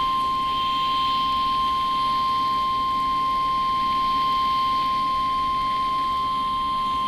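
NOAA Weather Radio warning alarm tone, a single steady 1050 Hz tone held unbroken, broadcast as the required weekly test of the station's warning alarm system.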